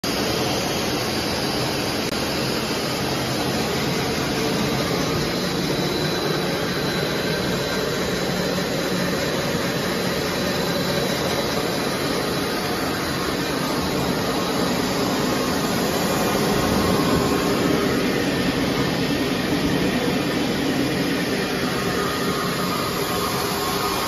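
Steady, continuous machinery noise of a running EVA spiral hose extrusion line, with a faint high whine for a few seconds early on.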